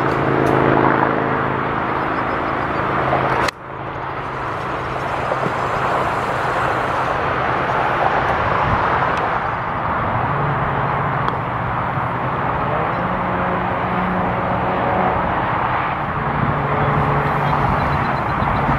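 Steady outdoor rumble and hiss of distant motor traffic, with faint low engine hums that shift in pitch. It drops out briefly about three and a half seconds in.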